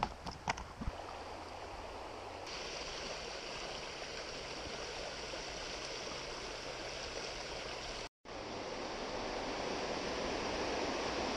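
Shallow river water running over stones, a steady rushing, with a few light clicks in the first second. The sound cuts out for a moment about eight seconds in and comes back a little louder.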